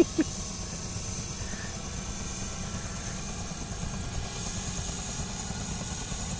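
Helicopter running on the ground at idle before take-off: a steady low rumble with a faint, steady high whine, its rotor turning slowly.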